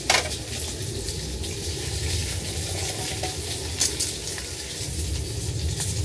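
Food sizzling steadily in a frying pan on a camp gas burner, with two short clicks: one at the start and one about four seconds in.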